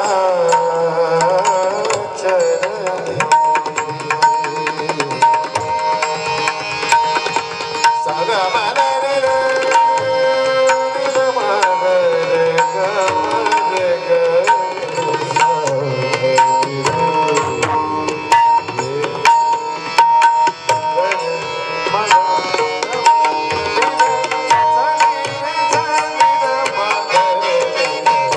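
Marathi devotional bhajan music: a hand drum plays a busy rhythm under a wavering melody, with a steady, repeatedly struck ringing tone.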